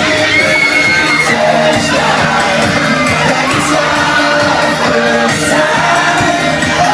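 Live pop concert: a band playing with a lead voice singing and a crowd cheering and singing along, echoing in a large hall.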